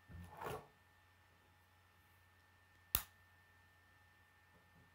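Plastic K'nex pieces being handled: a short rustling scrape near the start, then one sharp plastic click about three seconds in, the loudest sound.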